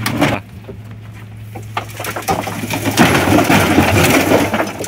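Wrecked Mitsubishi Canter truck cab, crumpled sheet steel, being dragged off its chassis: scraping, knocking and crunching metal, loudest in a long crunch over the last two seconds. A steady engine hum runs underneath.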